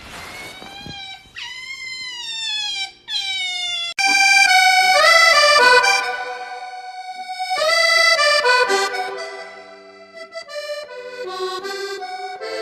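Three long pitched cries, each sliding down in pitch, over the first few seconds. Then accordion music takes over, with full sustained chords that change every second or so.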